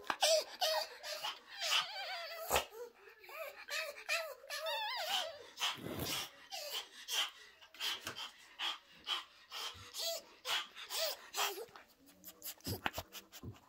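Pomeranian whining: a run of short, high whimpers that rise and fall, thickest in the first half, with soft clicks and rustles in between.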